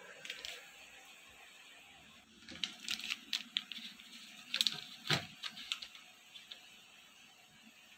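Plastic-wrapped cheese packet crinkling in the hand and set down on a plastic refrigerator door shelf: a run of light crackles and taps from about two and a half to six and a half seconds in, with one firmer knock just after five seconds.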